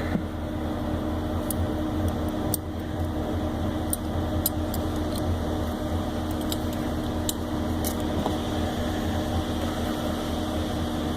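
Microwave oven running with a steady hum, with a few faint sharp clicks scattered through it.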